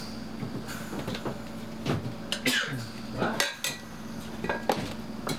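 Several sharp clinks and knocks of a kitchen knife and stainless steel pots as quince is cut and the pieces are handled at the pot, over a steady low hum.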